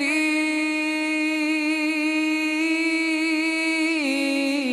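A young man's voice singing the opening of a naat unaccompanied, holding one long note with a slight waver that slides down a step about four seconds in.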